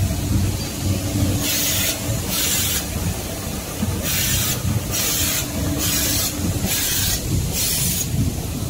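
Facial tissue production line running with a steady low machine rumble and hum. Over it come about seven short, evenly spaced hisses of air, roughly one every 0.8 s, typical of the packing machine's pneumatic valves cycling.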